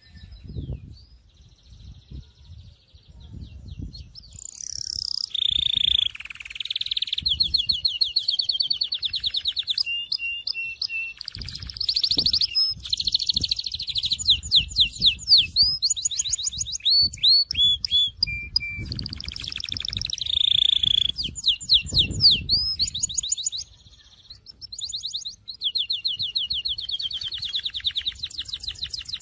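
Domestic canary singing a Syrian-style song: long runs of fast, high trills and rolls with rapid downward-sweeping notes. It starts softly, becomes loud about four seconds in, and breaks off briefly about three-quarters of the way through before going on.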